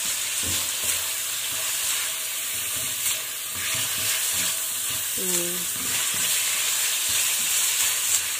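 Chicken pieces and sliced onion sizzling in hot oil in a stainless steel frying pan, with a spatula stirring them and lightly scraping the pan.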